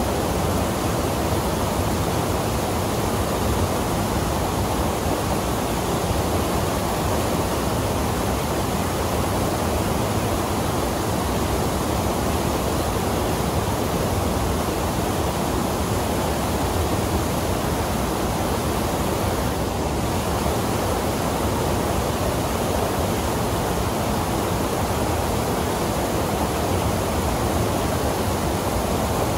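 Whitewater rapids and a small waterfall rushing over rocks into a rock pool, a steady, unbroken roar of falling water.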